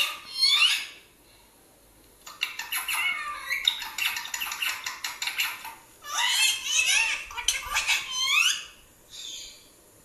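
Parrot squawks and chirps playing through laptop speakers: rapid high-pitched chatter in several bursts, with a pause about a second in and a faint last burst near the end.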